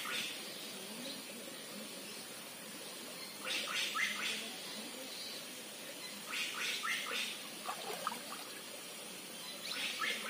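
Shallow stream running steadily over rocks, with a bird calling in bursts of short rising chirps about every three seconds.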